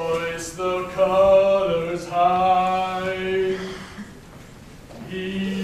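Low male chanting in long, held notes with small shifts of pitch. It breaks off about four seconds in and starts again near the end.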